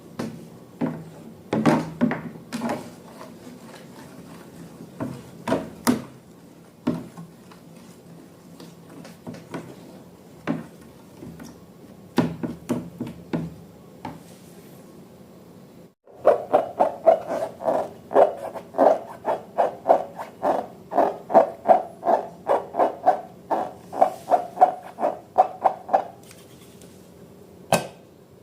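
Slime being worked by hand, making sticky clicks and squishes. About halfway in comes a fast, even run of wet squelches, about two or three a second, lasting roughly ten seconds.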